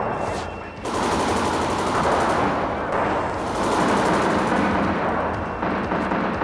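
Machine-gun fire in long automatic bursts, with short breaks about a second in and again around three seconds.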